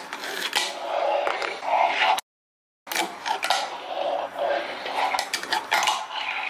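A fingerboard rolling on a wooden tabletop: a steady rolling noise from the small wheels, broken by sharp clacks as the deck is popped and lands on the wood. The sound cuts out for about half a second a little over two seconds in.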